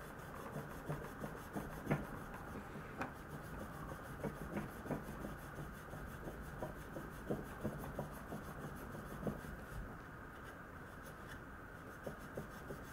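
A 52100 steel knife edge sawed back and forth in a groove of a wooden stick loaded with white aluminium-oxide compound: a faint, continuous rubbing with scattered light clicks. This is the polishing stage that removes the 1000-grit waterstone scratches toward a mirror bevel.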